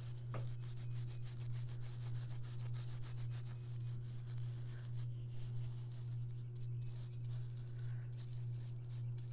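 A hand rubbing over a painted air-dry clay relief plaque to wipe back brown paint, heard as faint dry scratchy strokes. A steady low hum runs underneath and is the loudest sound.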